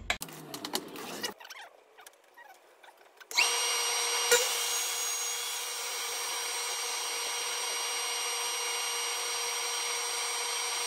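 A few light handling clicks, then a table saw is switched on about three seconds in and runs at full speed with a steady motor-and-blade whine.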